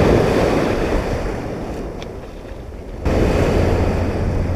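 Ocean surf: a wave breaking and washing up the beach, swelling and then fading over about three seconds. About three seconds in the sound cuts abruptly to louder surf with a steady low wind rumble on the microphone.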